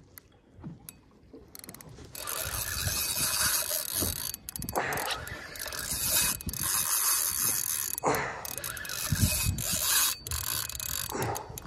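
Spinning reel's drag clicking rapidly as a hooked jack crevalle runs and pulls line off against it. The drag starts going about two seconds in and sings in long spells, easing off briefly a couple of times.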